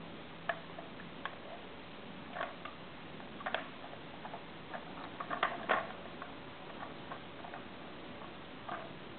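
Irregular plastic clicks and knocks as a dog noses and paws a treat-dispensing puzzle toy, turning its plastic cylinders on a PVC frame. The loudest cluster of taps comes a little past halfway.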